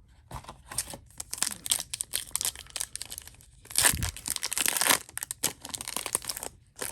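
Plastic foil wrapper of a hockey card pack being crinkled and torn open by hand, a run of crackling with the loudest tearing about four seconds in.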